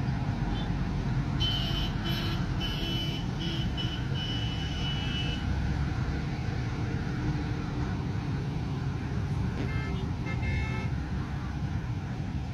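Steady rumble of road traffic. Repeated high-pitched tones sound from about a second and a half in until about five seconds in, and a shorter cluster of high tones comes about ten seconds in.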